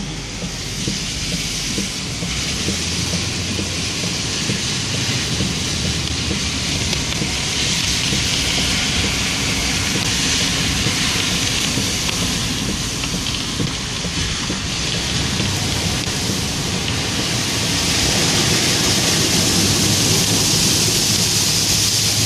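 Heard from inside the cab of a vehicle driving on a rain-soaked road: a steady hiss of tyres on wet pavement and rain, over a low engine rumble. It grows a little louder about three-quarters of the way through.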